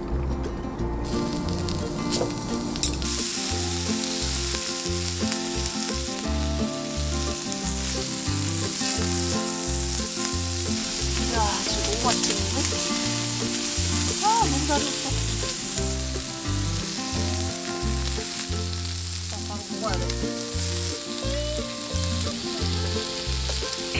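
Slices of beef sizzling on the hot plate of an electric multi-grill: a steady frying hiss that comes up about a second in as the meat goes onto the plate.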